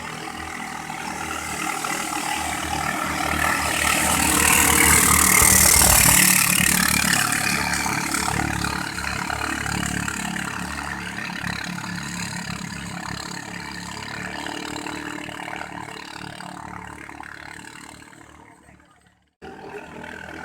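Katinting longtail boat engine running hard as a boat passes, growing louder to a peak about six seconds in, then slowly fading. The sound cuts off abruptly shortly before the end.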